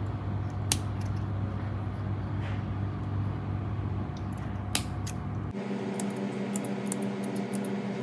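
A steady low hum with two sharp clicks. About two-thirds of the way in, the background changes abruptly to a different, higher hum with a run of quick light clicks and taps, like small objects being handled.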